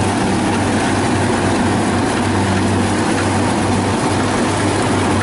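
Kubota DC70 combine harvester's diesel engine running steadily under load while the machine cuts and threshes rice, a constant low hum with a mechanical clatter over it.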